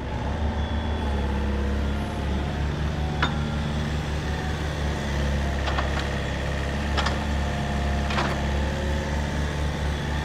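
Yanmar VIO55 mini excavator's diesel engine running steadily with a low pulsing hum while the upper structure slews around. Four short sharp clanks come through over the engine, in the second half.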